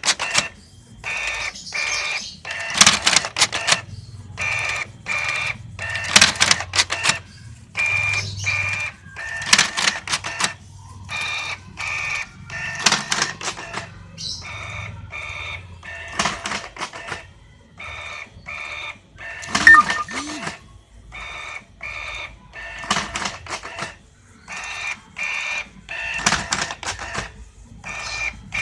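Homemade numbering machine running through its stamping cycle again and again, a mechanical clatter about once a second with a high whine in many of the cycles.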